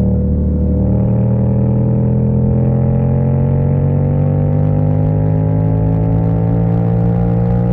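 Yamaha MT-07's parallel-twin engine running under way. About a second in its note steps up, then it climbs slowly and steadily as the bike accelerates.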